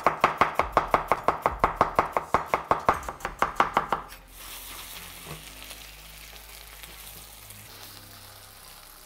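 Chef's knife rapidly slicing a yellow onion on a wooden cutting board, about six strokes a second. About four seconds in the strokes stop and the steady sizzle of sliced potatoes frying in vegetable oil in a stainless steel sauté pan takes over.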